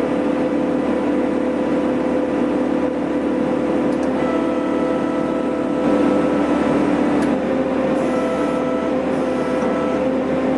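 Excavator with a firewood processor head, its engine and hydraulics running steadily under load, with a whine whose tones shift every few seconds as the head works.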